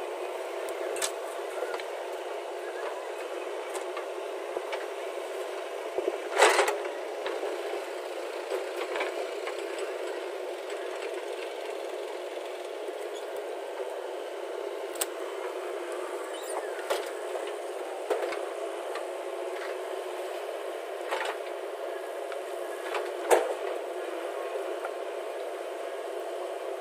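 JCB 3DX backhoe loader's diesel engine running steadily, heard thinly without its low rumble. Occasional sharp clanks stand out, the loudest about six and a half seconds in and another near the end.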